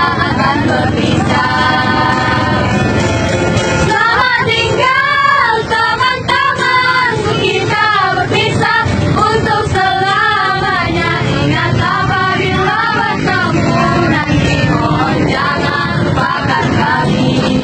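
Young female voices singing a slow song together over instrumental accompaniment, with long held notes.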